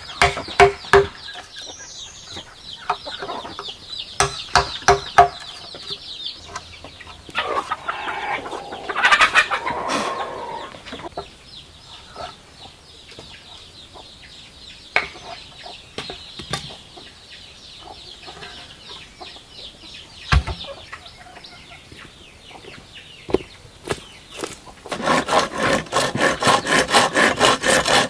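A wooden mallet knocking a chisel into a green bamboo tube in quick clusters of sharp strikes, then a hand saw cutting through bamboo in fast even strokes, about four a second, near the end. Chickens cluck in the background.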